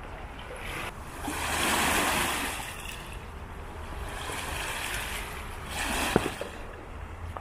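Lake water washing against the shore, two swells of noise that build and fade, with a brief sharp click near the end.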